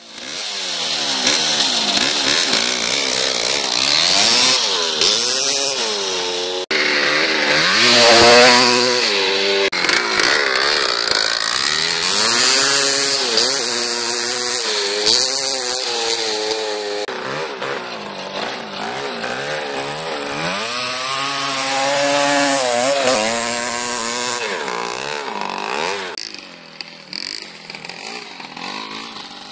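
1990 Kawasaki KX250's single-cylinder two-stroke engine running with no silencer, revved up and down over and over as the bike is ridden. It drops back and runs quieter near the end.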